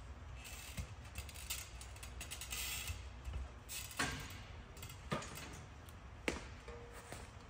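Scattered knocks and a brief scrape as a rigid solar panel is handled and pushed up onto a truck camper roof from the ladder, the sharpest knocks about four, five and six seconds in, over a low steady rumble.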